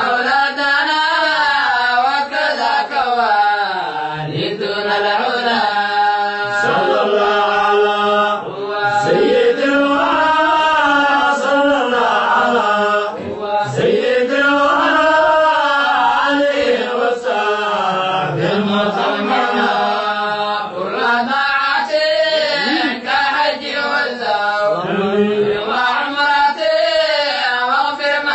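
Male voices chanting a Somali devotional qasiido, the melody gliding up and down in long phrases with brief breaks between them.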